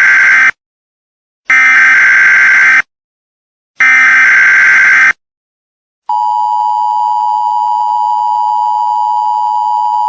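Emergency Alert System header: bursts of screechy digital data tones (SAME header), the end of one and then two more, each about a second and a half long with silent gaps between. About six seconds in, the steady two-tone EAS attention signal begins and holds.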